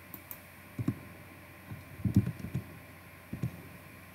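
Computer keyboard and mouse being worked: a few scattered soft taps and clicks, with a short cluster of them about two seconds in.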